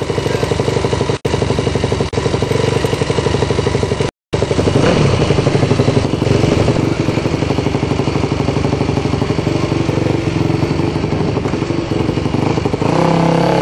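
Single-cylinder 426cc Minimono race bike engine idling with an even, rapid pulse, its tickover raised to about 2,500 to 3,000 rpm to keep the rear wheel from locking under heavy braking. The sound cuts out for a moment about four seconds in.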